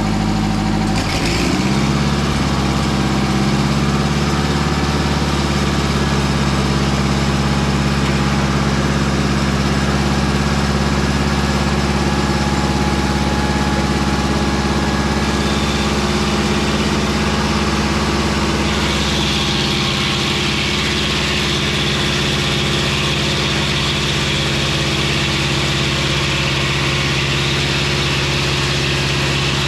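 Engine of a Mobile Dimension circular-blade sawmill running steadily, with its note shifting about a second in. A higher whine joins in the second half.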